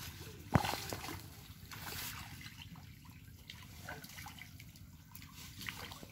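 Water trickling and dripping off a bamboo-framed four-corner lift net as it is hauled up out of a pond. There is a single sharp impact about half a second in.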